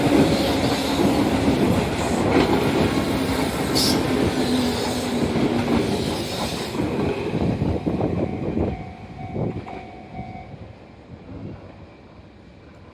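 Sotetsu 8000 series ten-car electric train passing close by, its wheels clattering over the rail joints. About eight seconds in the sound starts to fade steadily as the train moves away.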